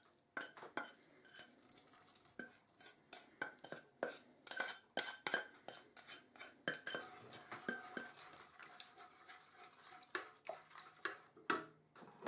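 Spatula stirring thick curry sauce in a metal saucepan: irregular scrapes and clinks of the utensil against the pan.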